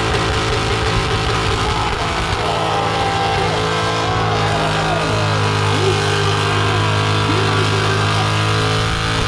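A car engine running at a steady idle.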